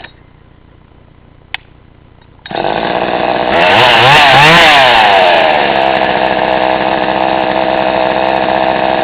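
Craftsman 2300CV two-stroke chainsaw engine cutting off, a single click about a second and a half later, then the engine starting again about two and a half seconds in. It is revved up once, its pitch rising and falling, and settles back to a steady idle.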